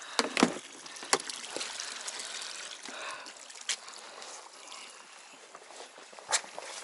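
Water trickling and dripping, with a few sharp clicks and knocks scattered through it.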